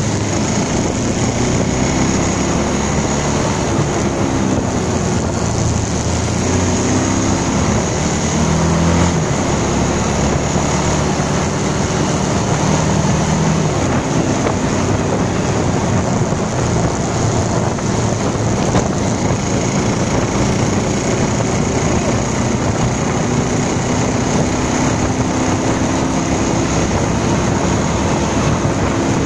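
Bajaj Pulsar 220 motorcycle's single-cylinder engine running under way, its note climbing in steps over the first ten seconds or so as the bike speeds up through the gears, under a steady rush of wind on the microphone.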